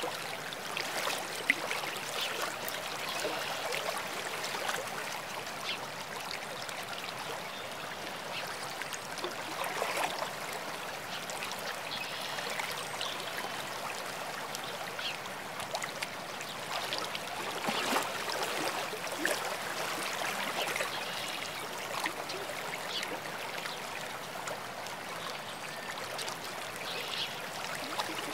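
Water of a small stream or falls trickling and splashing steadily, with many small splashes throughout.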